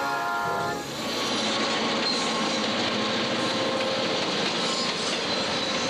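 Diesel-hauled passenger train passing close by, led by an EMD F-unit locomotive: a steady rush of engine and wheel noise with a fast rattle of wheels over the rail joints. It starts under a second in, as a held chord of tones cuts off.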